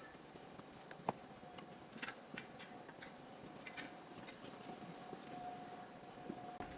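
Light clicks and small metallic rattles of a screw being tightened and hardware handled on a ventilator's metal stand, with one sharper click about a second in.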